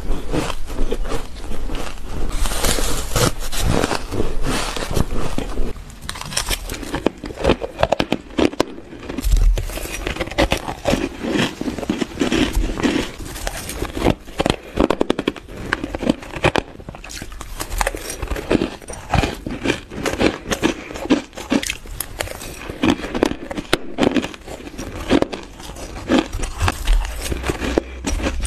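Shaved ice being bitten and chewed close to the microphone: a dense, continuous run of crisp crackling crunches, with the texture changing about six seconds in.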